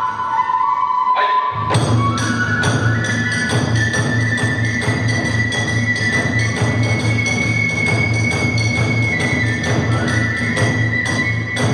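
Kagura hayashi accompaniment: a bamboo flute holding long, slowly shifting notes, joined about a second and a half in by a steady beat of drum and small hand-cymbal strikes at about three a second.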